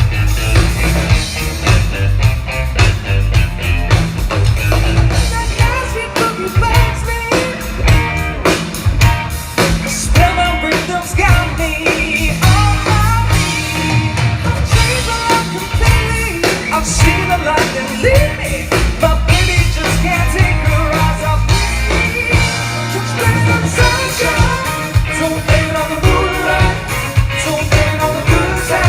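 Live country band playing with electric guitars, bass and drum kit, loud through a PA, with a voice singing over it.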